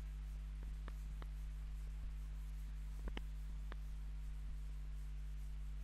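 Chalkboard being wiped with a blackboard duster: a few short scrapes and taps over a steady low electrical hum.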